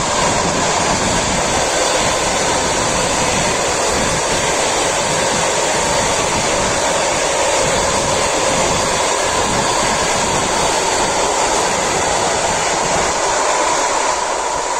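ED4M electric suburban train passing at speed: a loud, steady rush of wheels on the rails with a steady hum, easing off slightly near the end as it moves away.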